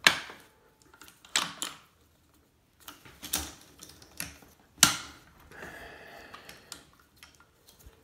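Sharp metal clacks from a semi-auto PKM's parts being handled and fitted back together during reassembly. There are four loud ones, about a second and a half apart, with lighter ticks between them, then a rough sliding scrape about two-thirds of the way in.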